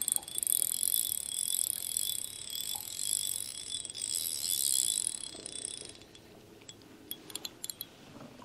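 Spinning fishing reel being cranked, a steady whirring and clicking of its gears that stops about six seconds in, followed by a few separate clicks.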